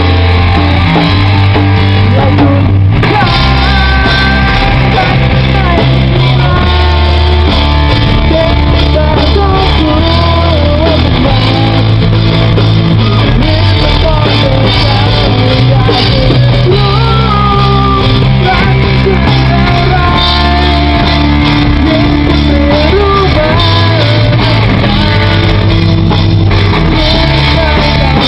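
Loud rock music: a band with electric guitar and drums, and a singing voice carrying the melody.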